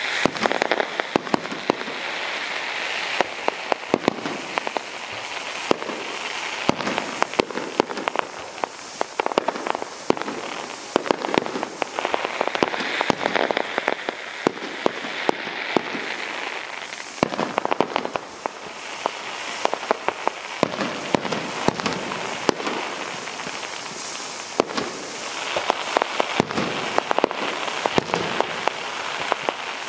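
Fireworks display going off continuously: a dense run of sharp pops and bangs over a steady crackling hiss, swelling and easing a few times.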